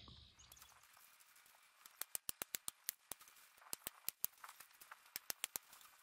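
Quiet for about two seconds, then quick irregular clusters of light, sharp clicks and ticks: a roll of galvanized hardware cloth (wire mesh) being unrolled and handled.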